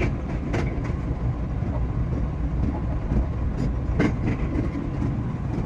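JR West 227 series electric train heard from on board, a steady low rumble with a couple of sharp clicks, about half a second and four seconds in.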